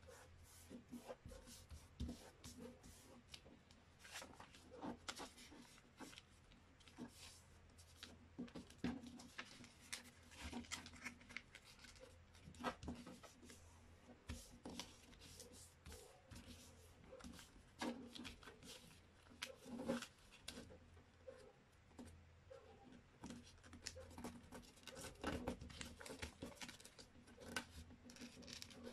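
A sheet of A4 paper being folded and creased by hand: faint, irregular crinkles, rustles and taps as fingers press and run along the folds.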